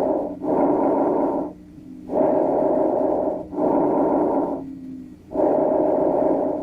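Recorded bronchovesicular breath sounds heard through a stethoscope: a soft rushing at each inhalation and each exhalation, the two phases about equally long and loud with a brief gap between them, about three breaths in all. This is the normal breath sound over the parasternal and interscapular regions.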